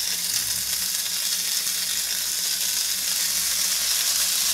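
Halved, peeled Weißwürste sizzling on the hot ribbed plates of a preheated OptiGrill contact grill, a steady high hiss that grows slightly louder near the end.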